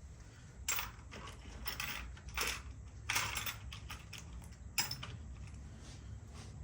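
Small metal parts clinking and rattling as they are rummaged through by hand: a handful of short, sharp clatters over the first five seconds.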